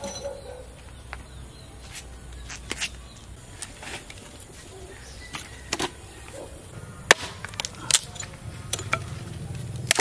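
Firewood sticks knocking and clattering as they are handled and gathered, with scattered sharp knocks, the loudest in the second half.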